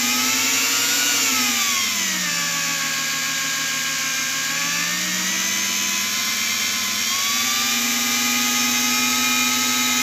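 An electric drill is spinning a homemade generator built from a fan motor, making a steady motor whine with many overtones. Its pitch rises slightly, drops about two seconds in, then climbs a little again near the end as the speed is brought up to push the generator's output toward 14 volts.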